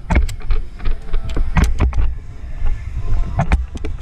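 A run of irregular sharp clicks and knocks over a steady low rumble: the noise of an airsoft player on the move in close-quarters play, heard on a body-worn camera. The knocks come thickest in the first two seconds, with a couple more a little after three seconds.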